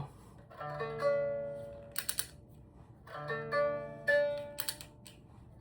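Biwa strings plucked one at a time, several single notes ringing and fading, with a couple of sharp clicks between them, as the restored instrument is checked for tuning.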